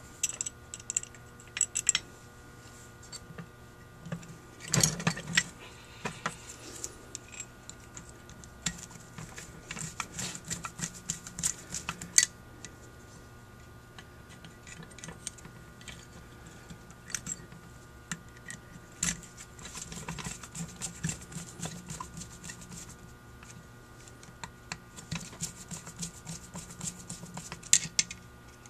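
Small screws being driven into a Holley 1904 carburetor body with a screwdriver: irregular metallic clicks, clinks and scrapes of tool and parts, with a louder clatter about five seconds in.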